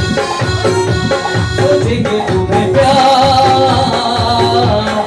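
Live Indian band playing a Bollywood song's instrumental passage: tabla keeps a steady rhythm under keyboard and harmonium chords. About three seconds in, a held melody line with a slight waver comes in over the top.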